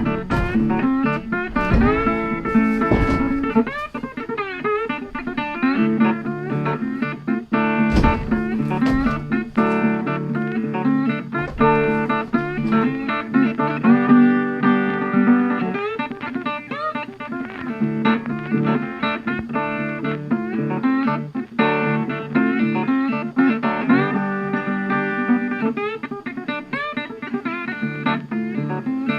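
Background music: bluesy plucked guitar with slide guitar.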